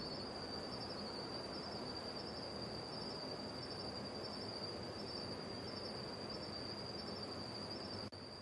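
Forest ambience of insects, likely crickets, trilling in one steady high tone with a faint regular pulse, over a soft even hiss; it drops out for a moment near the end.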